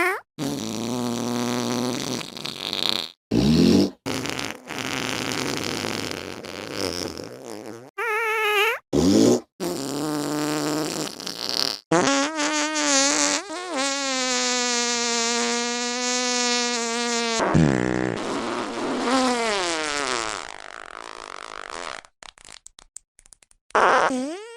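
A string of fart sounds, cut one after another with abrupt breaks, some short and some drawn out. The longest, in the middle, holds a steady pitch for about five seconds, and a run of quick short ones comes near the end.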